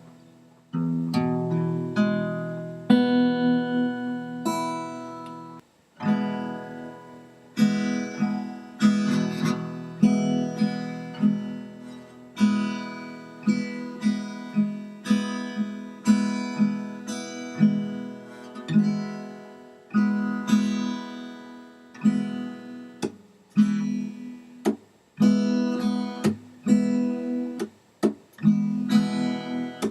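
Background music: acoustic guitar playing chords, struck about once a second and left to ring.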